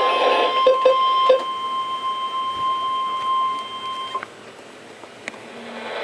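NOAA Weather Radio 1050 Hz warning alert tone through a RadioShack weather radio's speaker: one steady tone that cuts off about four seconds in, the signal that a warning message follows. A few short low beeps come in the first second and a half.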